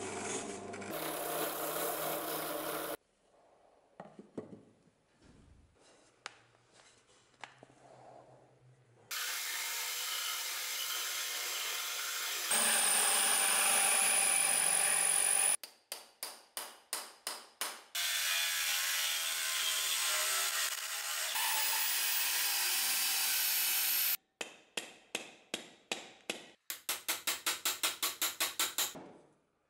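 Workshop sequence. It opens with a wire wheel brush spinning in a drill press until about three seconds in. Stretches of steady tool noise then alternate with runs of regular scraping strokes from a rasp shaping a wooden axe handle. Near the end comes a quick run of hammer blows driving the axe head onto the handle.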